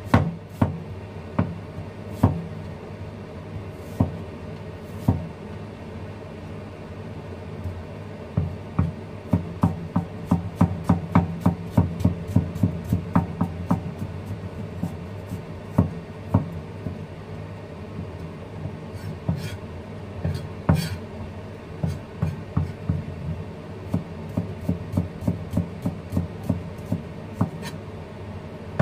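Chinese cleaver chopping ginger into thin strips on a wooden cutting board. A few scattered knocks at first, then a quick run of several chops a second, then slower, regular chops.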